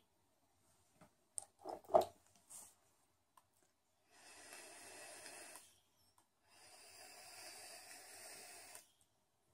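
A few clicks and knocks as the e-liquid dropper bottle is capped and the box-mod vape handled, then two long draws on the vape, about one and a half and two and a half seconds, the freshly dripped coil hissing as it fires while air is pulled through.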